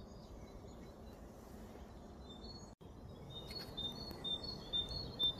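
Outdoor background noise, a steady low rumble, with a small bird calling in a series of short, high chirps over the last two seconds. The sound drops out for an instant about halfway through.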